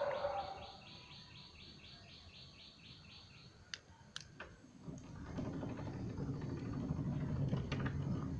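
Automatic sliding-gate motor starting about five seconds in and running with a steady low hum as the gate slides. Before it come two sharp clicks just before four seconds in, and a rapid high chirping of about six pulses a second. A dog's bark sounds right at the start.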